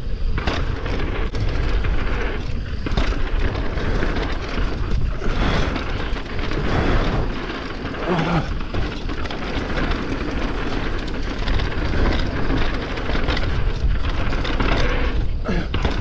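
Wind buffeting the camera microphone and tyres rolling over dirt as an e-mountain bike descends a trail, with frequent knocks and rattles over bumps.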